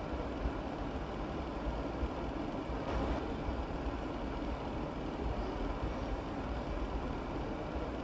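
Chef's knife slicing a carrot into julienne on a plastic cutting board, soft taps over a steady low rumble and hiss of background machinery.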